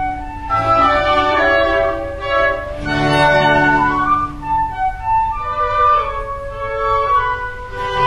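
Background music: strings and flute playing a melody over a low held bass note.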